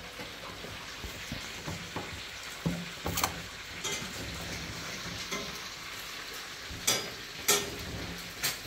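Manual butterfly-handle can opener cutting around the lid of a large steel tin. Sharp, irregular clicks and snaps as the key is turned, over a steady background hiss.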